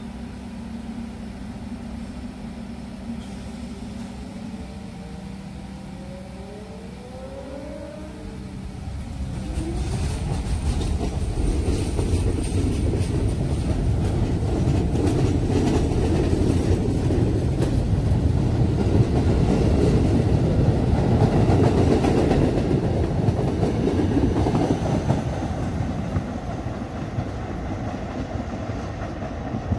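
R44 subway train pulling out of the station: a motor whine rising in pitch as it starts off, then wheels rumbling and clacking over the rail joints as the cars pass close by. The sound grows loud through the middle and fades as the train pulls away near the end.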